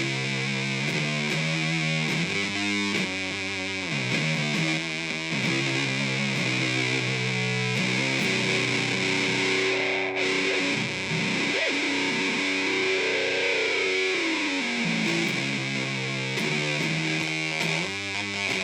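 Electric guitar played through a heavily distorted octave drone and noise pedal: fuzzy notes changing every second or so over a steady hiss, with pitch sweeps and wobbles from the pedal's oscillation around the middle and again near the end.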